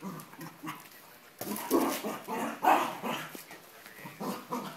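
A cocker spaniel barking several times in quick succession. The barking starts about a second and a half in and is loudest around the middle.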